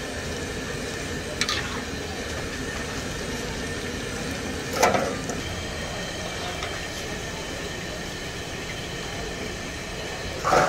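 Gram-flour pakoras deep-frying in a large wok of hot oil: a steady sizzle, with a few short knocks of the perforated steel skimmer against the wok, the loudest about five seconds in.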